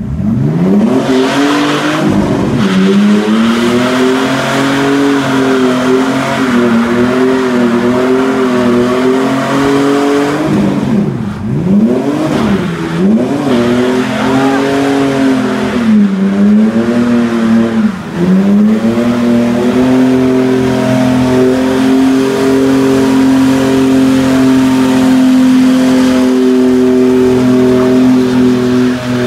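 Straight-piped 2002 Ford Ranger's 4.0-litre V6 revving hard through burnouts and donuts, the rear tires spinning with a hiss of tire noise. The revs climb sharply at the start, waver up and down, drop and climb again several times around the middle, then hold steady and high near the end.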